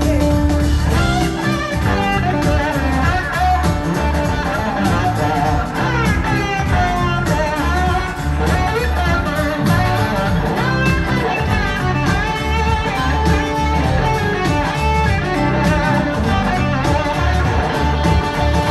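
Live blues-rock band playing an instrumental passage: an electric guitar lead with gliding, bending notes over drums, bass and keyboard.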